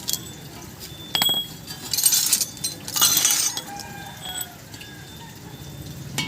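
A sharp metallic clink about a second in, then two short bursts of scraping noise around two and three seconds in.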